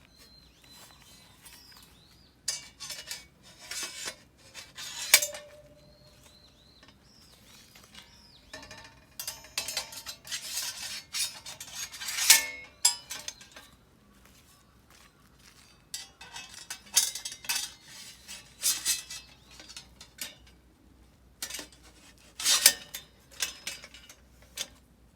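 Steel plates and parts of a knock-down BBQ grill clanking and scraping as they are handled and slotted together, in irregular bursts of metal knocks. One clank about five seconds in rings on briefly.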